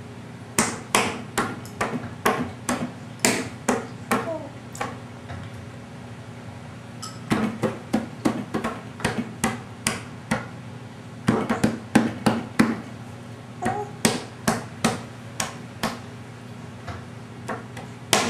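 A baby slapping her palms on a wooden tabletop, in runs of quick slaps about two to three a second with short pauses between.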